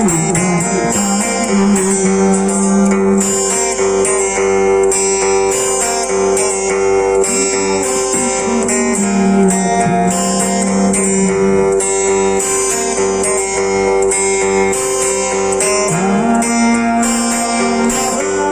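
Acoustic guitar accompaniment for a Lampung song, strummed and plucked steadily, with long held notes sounding above it.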